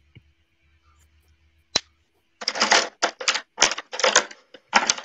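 A single click, then from about halfway through a run of short, irregular scratching strokes: a drawing tool being worked quickly over paper.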